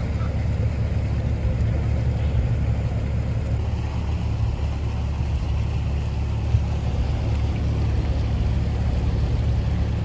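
Small river car ferry's engine running steadily while under way, a continuous low hum.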